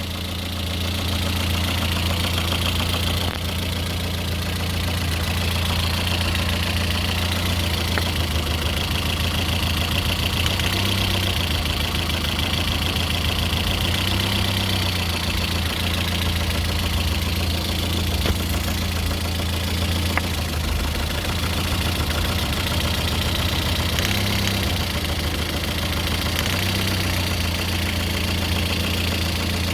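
Lada Kalina's 1.6-litre eight-valve VAZ-11183 engine idling steadily, with a fast, regular knock running through it whose cause is unknown.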